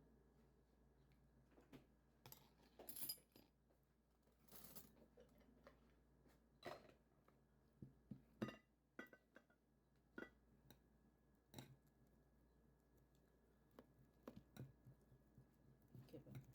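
Scattered light clinks and knocks of dishes and utensils being handled at a table, a dozen or so short sharp sounds in an otherwise quiet room.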